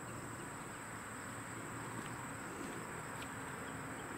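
Faint steady insect buzzing, with a thin high whine above it.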